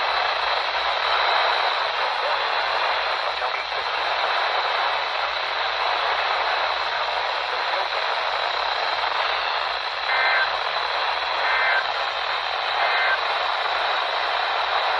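Heavy static from a weak NOAA Weather Radio signal (station WXL42): a steady hiss with a faint steady whistle. About ten seconds in, three short blips of the alert's digital header tones break faintly through the static, about a second and a half apart.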